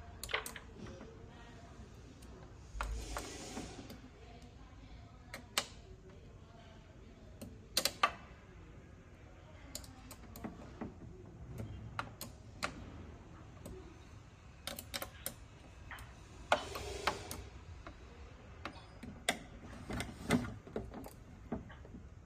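Scattered small metallic clicks and taps of a 2.5 mm hex key tightening the motor's four mounting screws. Twice a brief hiss of about a second breaks in, once about three seconds in and once past the middle.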